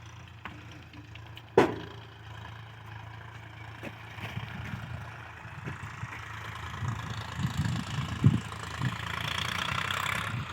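Diesel engine of a heavy machine idling, growing louder over the last few seconds, with a single sharp knock about one and a half seconds in.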